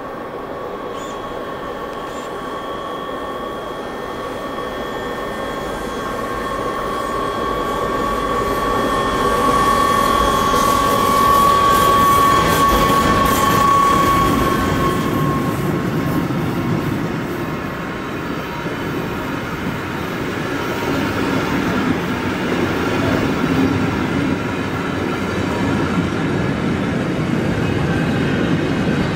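Electric-hauled mixed freight train passing: a steady high whine grows louder and peaks as the locomotive goes by, then fades out. The train is followed by the continuous rumble and clatter of tank wagons and car-carrier wagons rolling past.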